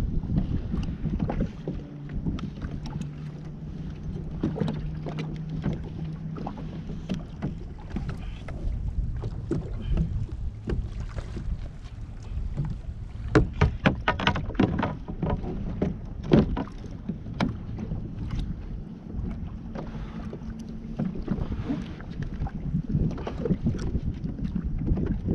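Wind buffeting the microphone over water moving against a fishing kayak's hull. A cluster of sharp knocks and thumps comes about 13 to 16 seconds in.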